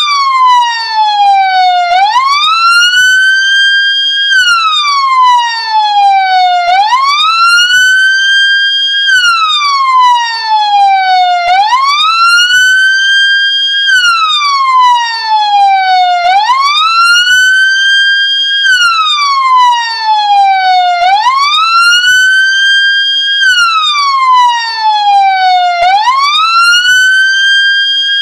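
Ambulance siren wailing: each cycle rises quickly, holds high for a moment, then falls slowly, repeating about every five seconds.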